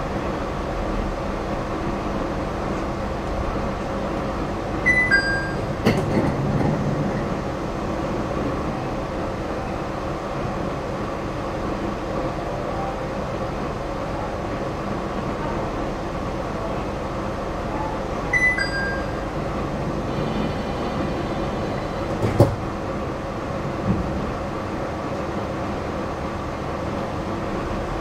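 Nippori-Toneri Liner rubber-tyred automated guideway train running along its guideway, heard inside the car as a steady rolling rumble with a motor hum. A two-note falling chime sounds twice, about 5 seconds in and again about 18 seconds in, and there are a couple of short knocks.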